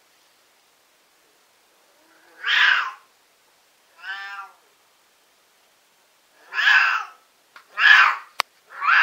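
Siamese cat shrieking: five loud, drawn-out calls after about two seconds of silence, the second one quieter and more tone-like, the last cut off at the end, with a sharp click just before it. The owner puts the yowling down to the cat being in heat.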